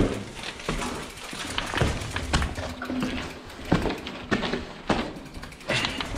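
Footsteps and a Trek Fuel EX 5 mountain bike being moved by hand over a concrete floor strewn with rubble and broken glass: irregular crunches, knocks and rattles, one or two a second, echoing in a small concrete stairwell.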